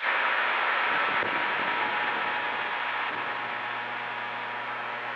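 CB radio receiver on channel 28 with its squelch opening suddenly on a keyed carrier that carries no voice: a steady hiss with a low hum and a faint steady tone, slowly easing in level.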